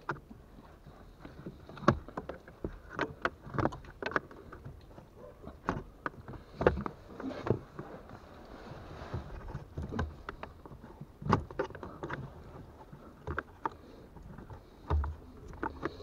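Irregular plastic clicks, taps and rustling from a Nissan X-Trail's cabin air filter and its housing as the filter is pried out from behind the accelerator pedal, its lower edge worked free first.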